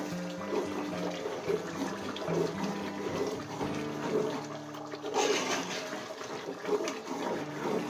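Metal spoon stirring a thick, simmering tomato stew in an aluminium pot, with wet sloshing and bubbling that swells in surges, loudest about five seconds in. Quiet background music with low sustained notes plays underneath.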